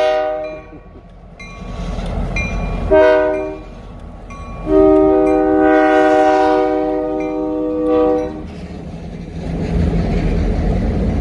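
Multi-note air horn of the lead Grand Elk diesel locomotive sounding three blasts: the end of one right at the start, a short one about three seconds in, and a long one of nearly four seconds. Near the end the locomotives' diesel engines rumble past close by.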